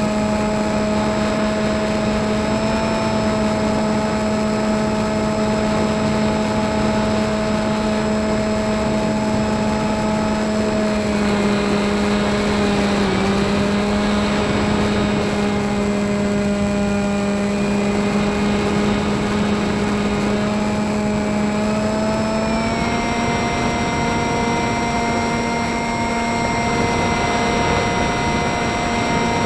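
Motor and propeller of a radio-controlled FPV model plane droning steadily, heard from its onboard camera with wind rush. The pitch drops slightly about eleven seconds in and rises again a little past twenty seconds, as the throttle is eased and opened.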